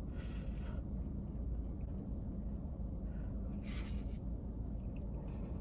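Steady low rumble inside a car cabin, with two short sniffs from someone holding back tears, one at the start and one about four seconds in.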